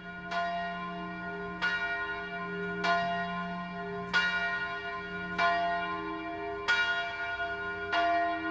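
A bell tolling at an even pace, seven strokes about a second and a quarter apart, each ringing on into the next.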